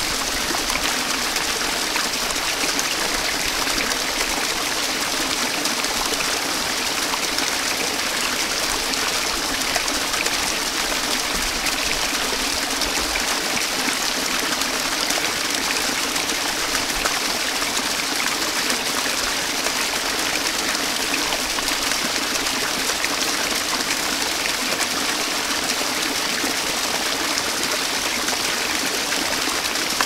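Small forest waterfall and stream, water rushing and splashing steadily without a break.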